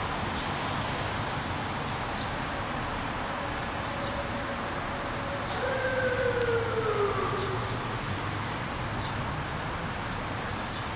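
Steady street noise of traffic, with a pitched tone that glides downward for about two seconds midway, like a distant siren.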